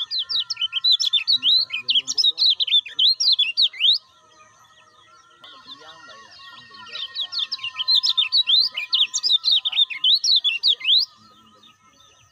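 Kecial kuning, a yellow white-eye, singing two fast bursts of high, sweeping chirps, each about four seconds long, with a pause of about three seconds between them.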